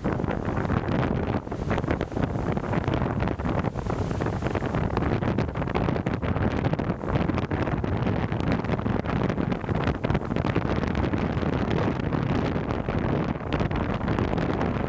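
Strong wind buffeting the microphone in gusts, a loud, fluttering rumble, with the sea surf faintly beneath it.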